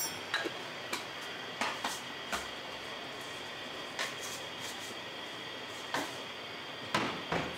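Scattered light clicks and taps of a spoon and spice containers over a steady low hiss, as ground spices are added to a pot of rice.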